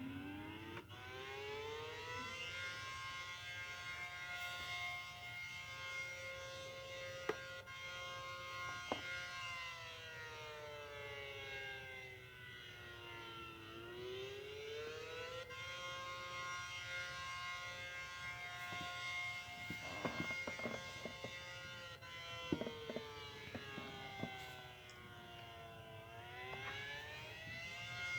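ACA Allertor 125 outdoor warning siren sounding a wailing signal, the attack signal: its pitch holds high for several seconds, slides down, then climbs back up, twice over. A few brief sharp knocks sound about two-thirds of the way through.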